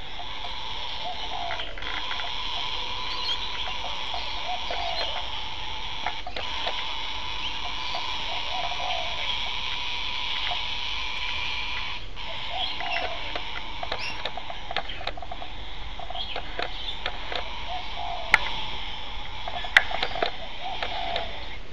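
Cockatoo making a long, drawn-out raspy sound, held almost without pause and broken off only briefly a few times, with a couple of sharp clicks near the end.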